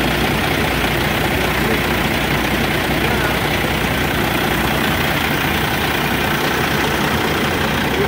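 Semi truck's diesel engine idling steadily in the open engine bay, kept running with the air conditioning on while refrigerant is charged in.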